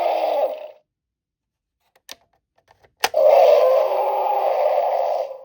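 Electronic roar sound effect from the Spinosaurus toy's small built-in speaker. One roar dies away under a second in; after a button click about three seconds in, a second roar of about two seconds plays.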